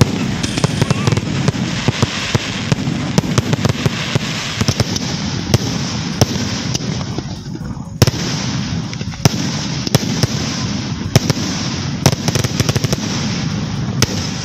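Aerial fireworks display: a dense, continuous crackle of bursting shells, punctuated by many sharp bangs. A brief lull comes about seven seconds in, and a loud bang about eight seconds in sets it going again.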